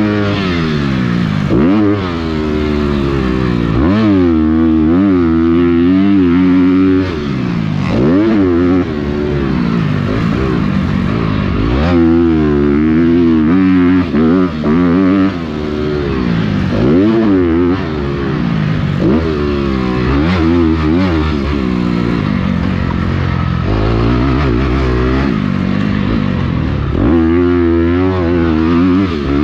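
Motocross bike engine under race throttle, its note sweeping up sharply and falling back over and over as the rider accelerates, shifts and rolls off. It has a few brief cuts in the throttle, heard close up from the on-board camera.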